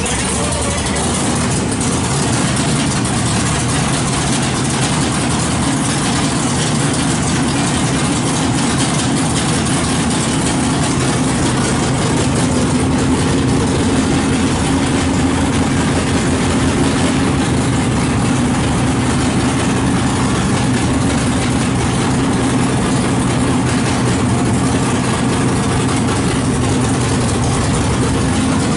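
427-powered 1970 Chevy Nova drag car's V8 idling steadily and loud.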